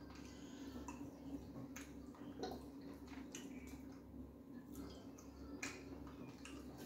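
Faint, scattered wet squishes and small clicks of fufu and Ghana light soup being eaten by hand, over a steady low hum.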